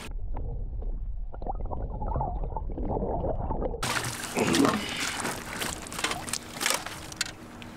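A bass thrashing and splashing as it is scooped into a landing net at the boat's side, with water sloshing. The sound is muffled with a low rumble for the first few seconds, then clearer, with the loudest splashes near the middle.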